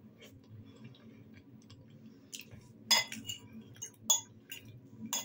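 Metal fork clinking and scraping against a ceramic bowl several times as food is scooped up. The loudest clink comes about three seconds in.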